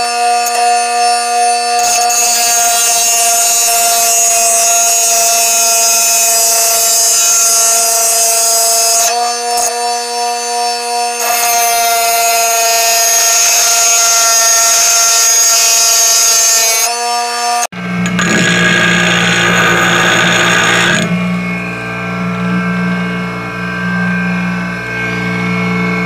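Bench grinder motor running with a steady whine while a metal piece held in locking pliers is ground flat against the wheel, a gritty grinding hiss in two long passes with a brief pause between. About three quarters of the way in the sound cuts abruptly to a lower-pitched motor hum with a short grinding rasp.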